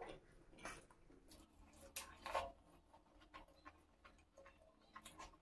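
Close-miked chewing: soft, wet mouth clicks and smacks from a mouthful of puri soaked in egg curry, a few scattered clicks with the loudest a little over two seconds in.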